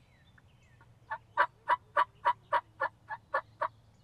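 A series of about ten sharp turkey yelps, roughly four a second, sounded on a hand-operated turkey call to draw in a gobbler.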